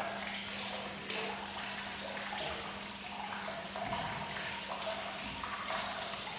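Water running steadily, with a steady low hum beneath it.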